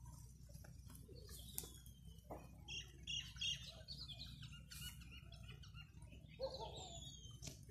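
Birds chirping faintly: a cluster of quick high chirps about three seconds in, and a couple of short falling whistled notes.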